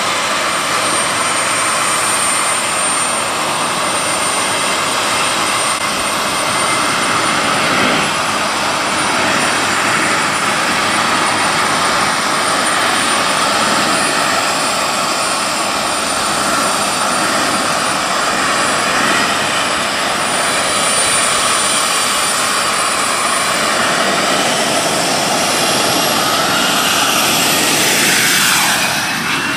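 JU-01 motorcycle turbine engine running steadily with a loud rushing noise and a thin high whine. Near the end the bike rides past close by and the pitch sweeps as it goes.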